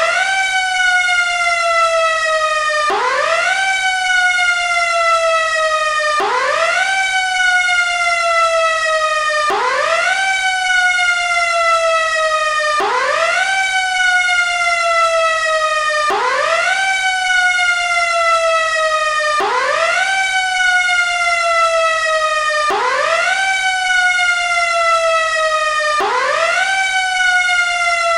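Fire engine's Federal Q-siren, a mechanical rotor siren, worked by hand: it whoops up quickly, then slowly winds down in pitch before being spun up again, about every three seconds in a steady repeating cycle.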